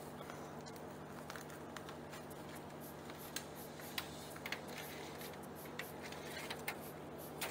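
Clear plastic lid of a ready-made graham cracker pie crust being worked off its foil tin by hand, giving scattered faint crinkles and clicks of thin plastic over a steady low hum.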